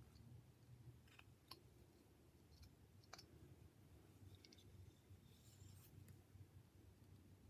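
Faint, scattered clicks and scrapes of a small carving knife taking cuts on a hand-held wooden figure being whittled, about half a dozen in all, with near silence between.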